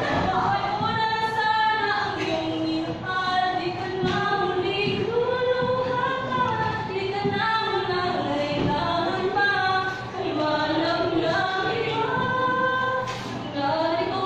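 Singing of a harana, a slow Filipino serenade song, with long held notes gliding from pitch to pitch.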